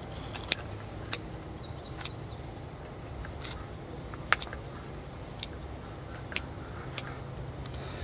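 Small pair of scissors snipping through moss at the edge of a bonsai pot: about nine sharp snips at irregular intervals.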